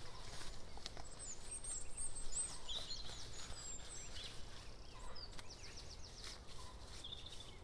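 Several woodland songbirds singing together: high chirps and short falling whistled phrases, with a fast trill about five seconds in.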